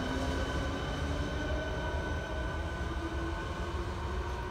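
A České dráhy class 471 CityElefant double-deck electric unit pulls away, its electric traction whine of several thin tones creeping upward in pitch over a steady low rumble of wheels on rail.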